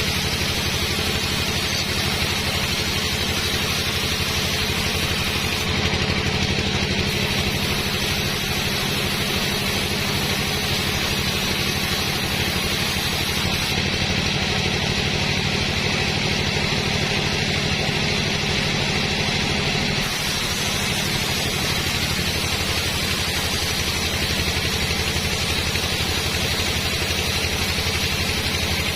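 A sawmill's engine running steadily, with a constant hiss above its low, even pulsing.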